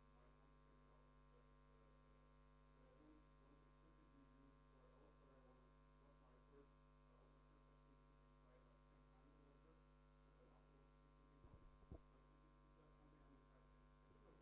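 Near silence: a steady electrical mains hum, with a faint, indistinct distant voice and a few soft clicks near the end.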